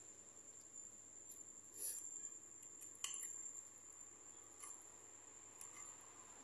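Faint clinks and scrapes of a metal fork against a plate as noodles are twirled and lifted, with two sharper clinks about two and three seconds in and a few fainter ticks after. A steady high-pitched whine sits underneath.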